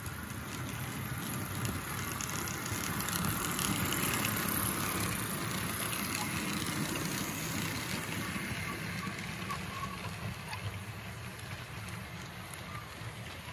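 HO-scale Athearn Dash 9 model locomotives and freight cars rolling past close by: a steady rattling hum of the locomotive motors and wheels on the track. It is loudest about four seconds in as the locomotives go by, then eases off a little as the boxcars follow.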